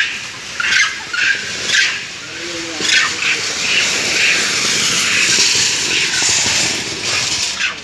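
Captured macaques in a wire trap cage giving short, shrill shrieks about once a second, followed by several seconds of loud, even hissing noise.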